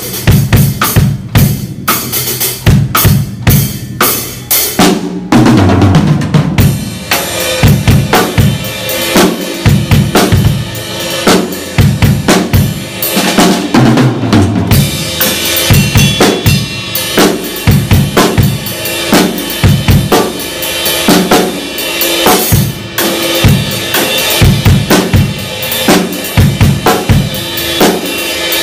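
A Pearl drum kit played hard and fast: bass drum, snare and toms in quick beats and fills, with cymbals washing over them. The playing starts in short phrases with small gaps and becomes a continuous, dense run about five seconds in.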